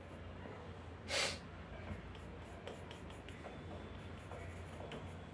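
Graphite pencil scratching faintly on drawing paper in short shading strokes, over a low steady hum. A brief, loud hiss comes about a second in.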